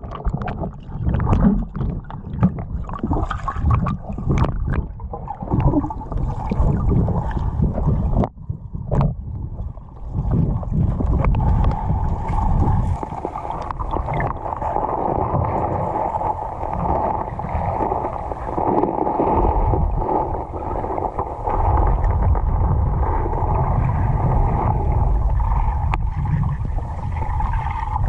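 Underwater sound picked up by a diver's camera in a river: a string of sharp clicks and knocks for the first ten seconds or so, then a steady rushing of water.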